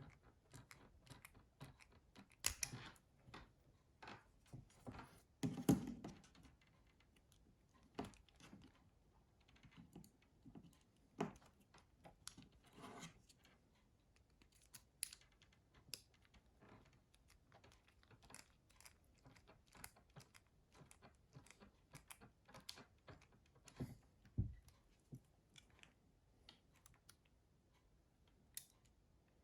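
Faint, irregular small clicks and taps of a tiny screwdriver and plastic phone parts as screws are driven into a Nokia 6060's housing, with a few louder knocks and one duller thud late on.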